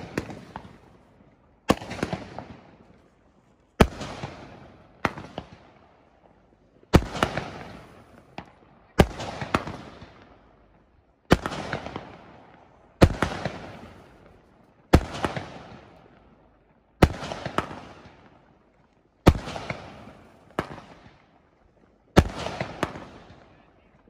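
Aerial fireworks bursting in a steady barrage: a sharp bang about every two seconds, each dying away over a second or so.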